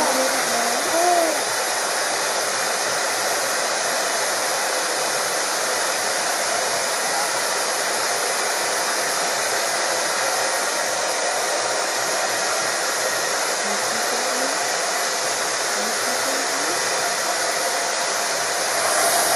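Steady, loud white-noise hiss played to soothe a crying newborn. The baby cries briefly in the first second or so and then falls quiet under the noise, with a few faint whimpers later on.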